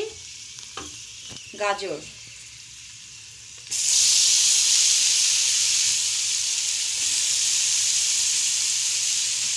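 Ghee sizzling faintly in a kadai with frying cashews and raisins; about four seconds in, grated carrot tipped into the hot ghee sets off a sudden, much louder sizzle that stays steady.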